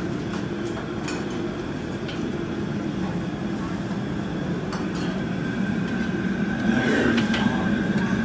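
High-heat gas wok burner running steadily under a steaming wok, with a metal ladle clinking and scraping against the wok now and then, several times close together near the end.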